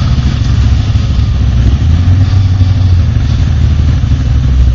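ATV engine idling steadily with a loud, low engine note that grows a little stronger about two seconds in.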